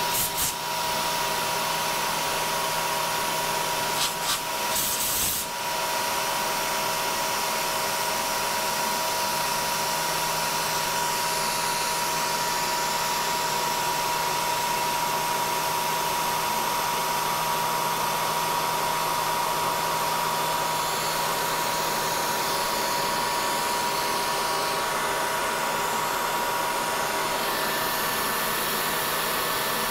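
CNC Bridgeport milling machine's spindle running as the end mill cuts thin aluminum sheet, under a steady hiss of compressed air blowing the chips clear of the cutter. A steady high whine runs through it, with a few brief clicks near the start and again about four to five seconds in.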